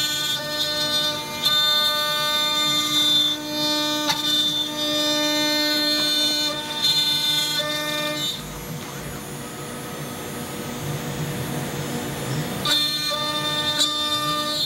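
CNC router spindle whining steadily as its bit makes a conventional-cut clean-up pass along the sidewall of 3/4-inch walnut, with a shop vacuum hose sucking up the chips. About eight seconds in, the whine drops to a softer hiss for about four seconds, then returns.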